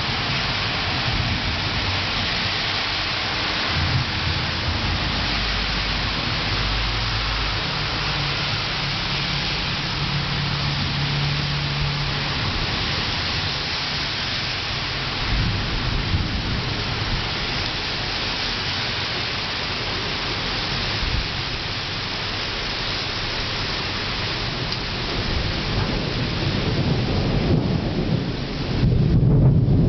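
Heavy rain hissing steadily, with thunder rumbling low several times, the longest roll about a quarter of the way in. Near the end the rain hiss falls away under a louder low rumble.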